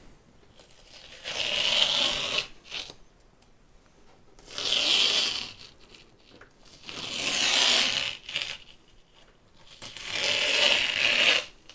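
Masking tape being peeled off the edges of a painting panel, four strips one after another. Each peel is a tearing sound lasting about a second.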